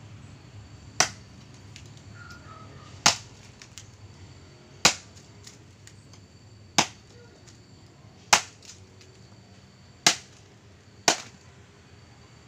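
A full-tang golok tebas (Indonesian machete) with a 30 cm spring-steel blade chopping into a thick wooden branch held upright: seven sharp chops, one every one and a half to two seconds.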